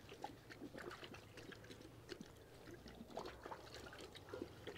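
Near silence: faint outdoor ambience with scattered light ticks.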